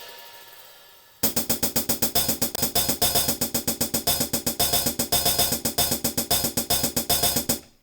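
Drum-machine hi-hat sample, used as a replacement for an acoustic hi-hat, playing a fast, even pattern that sounds really mechanised. A cymbal ring fades out in the first second before the pattern comes in.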